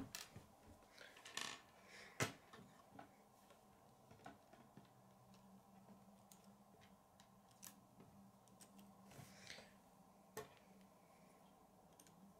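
Scattered light clicks and taps of plastic K'nex pieces being handled, slid onto a rod and set down on a wooden table, over quiet room tone.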